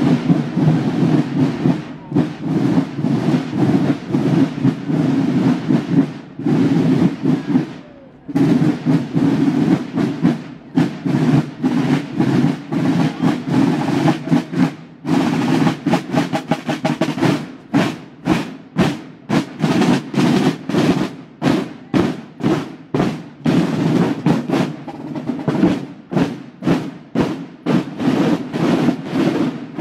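Buekorps marching drum corps: a rank of snare drums playing rolls and cadences, settling into a steady, evenly spaced beat around halfway through.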